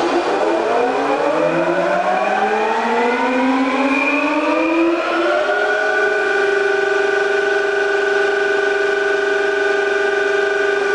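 FAT 630 straight-bed lathe's spindle drive spinning up under power: a loud whine that climbs steadily in pitch for about five seconds, then settles into an even, steady whine as the spindle reaches speed.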